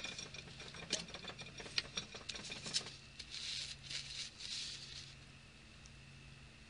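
Paper crackling and rustling as a scroll is unrolled and handled: a run of sharp crackles for about three seconds, then a softer rustle that dies away about five seconds in.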